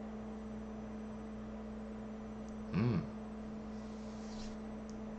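Steady low electrical hum, with one brief murmur from a man's voice a little under three seconds in.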